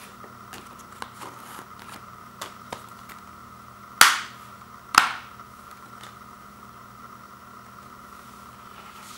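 Plastic Blu-ray keep case snapped shut: two sharp, loud snaps about a second apart, after a few light plastic clicks from handling the case.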